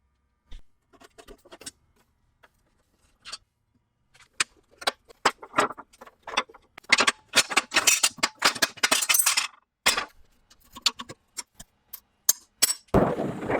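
Metal floor grate being handled and worked on: irregular clinks, rattles and scrapes, thickest in the middle, with a louder rasping stretch near the end.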